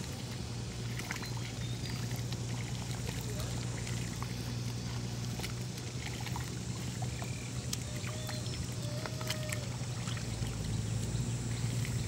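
A small farm machine's engine running steadily with an even low hum, with water pouring and splashing.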